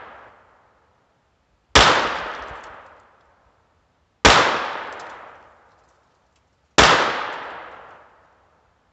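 Browning Buck Mark semi-automatic .22 LR pistol firing single shots about two and a half seconds apart: three sharp cracks, each trailing off over a second or so, and a fourth right at the end.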